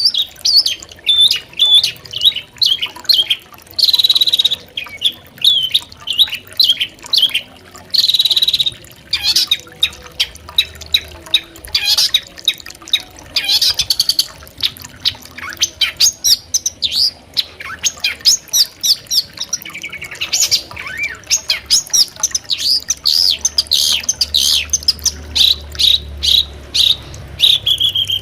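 Long-tailed shrike (cendet) singing a fast, chattering song of short chirps, broken by a few harsh, rasping notes about four and eight seconds in.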